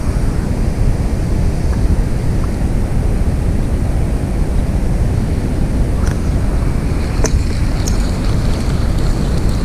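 Wind buffeting the microphone: a steady low rumble, with a few faint clicks in the second half.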